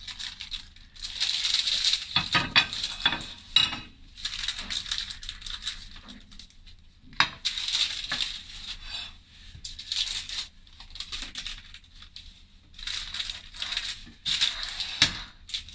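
Baking paper rustling and crinkling in several bursts as it is handled and peeled, with a few light knocks of a ceramic plate on the countertop.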